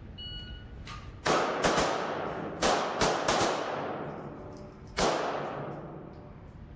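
Handgun shots at an indoor range: a quick string of about six shots starting about a second in, then one more shot about five seconds in, each ringing out with a long echo off the hard range walls.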